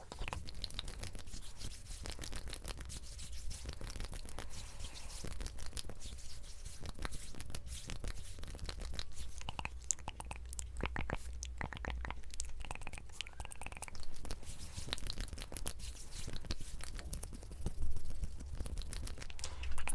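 Close-miked ASMR trigger sounds: dense, irregular crackling and scratching from objects handled right at the microphone, over a steady low hum.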